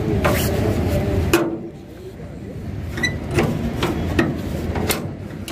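A handful of sharp metal clicks and knocks from the front bonnet latch of an Indofarm 3055DI tractor being pressed to release its single-piece bonnet.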